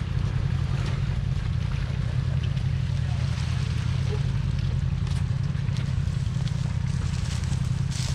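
Off-road vehicle engine running steadily at an even, low speed, with no revving.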